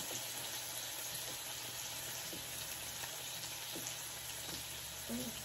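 Meat frying on a tabletop electric griddle: a steady sizzle with a few faint pops.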